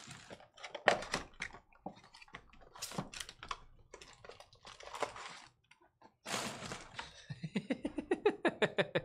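Sealed foil trading-card packs being handled, squared up and set down on a table: a run of light taps, clicks and a short swish. Near the end a man laughs in a quick, even string of "ha" sounds.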